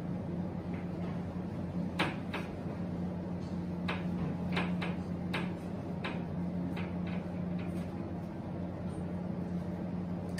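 Whiteboard being wiped clean with a duster: scattered short knocks and rubs of the duster against the board, over a steady low hum.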